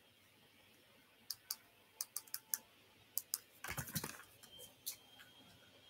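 Faint, scattered clicks of computer keys, one or two at a time, while camera settings are being changed on the computer. About four seconds in there is a short cluster of louder bumps and rustling as something is handled.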